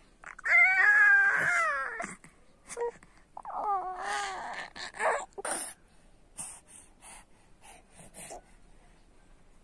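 A baby's voice: two high-pitched, wavering cries, the first about a second and a half long and the second about a second long. A few faint clicks and rustles follow.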